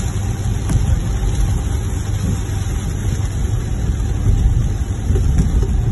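Steady low rumble of a car driving on a rain-soaked road, heard from inside the cabin: engine and tyres on the wet surface.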